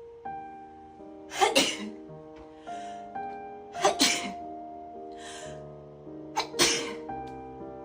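A person sneezing three times, about two and a half seconds apart, in an allergy sneezing fit, with a short breathy sound after each sneeze. Piano music plays steadily underneath.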